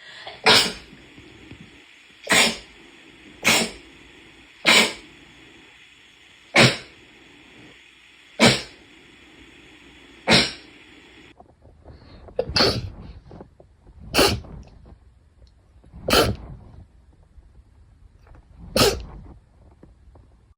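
A series of about eleven sharp sneezes, one every one to two and a half seconds. About halfway through, a steady high background hum under the first sneezes stops.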